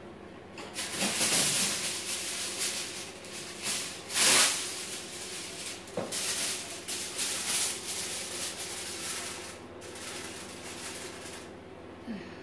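Aluminium foil crinkling and rustling as it is handled and pressed over a baking dish, in irregular bursts that stop shortly before the end.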